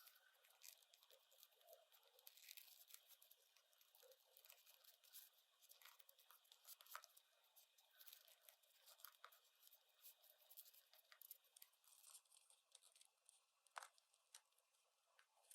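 Faint, quick clicks, taps and crinkles of small plastic toy pieces and packaging being handled, with one sharper click near the end.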